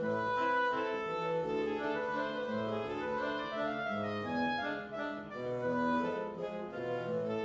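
Instrumental background music: a slow melody of held notes over a lower accompaniment.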